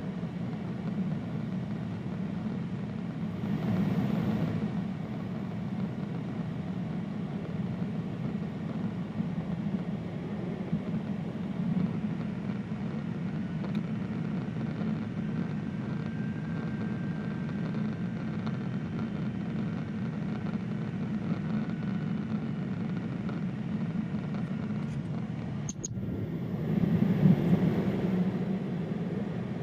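Steady cabin noise of a Boeing 767-300ER in flight: a low hum of engines and rushing air. It swells louder twice, about four seconds in and again near the end, with a single sharp click just before the second swell.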